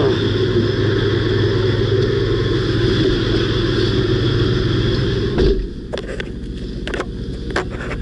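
Semi truck's diesel engine idling, heard loud with the blizzard noise through the open cab door, until a thump about five and a half seconds in as the cab door shuts and muffles it. A few light clicks and knocks inside the cab follow.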